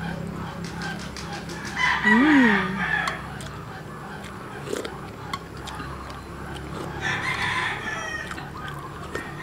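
Rooster crowing twice, a long crow about two seconds in and a weaker one around seven seconds.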